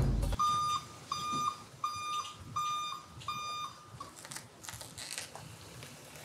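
Electronic beeper sounding five even, high-pitched beeps, about one every three-quarters of a second, with a fainter sixth before it stops. A drum-backed music track cuts off just before the beeps begin.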